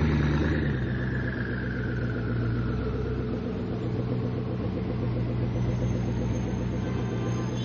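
Koenigsegg Agera R's twin-turbo V8 dropping back from a rev in the first second, then idling steadily.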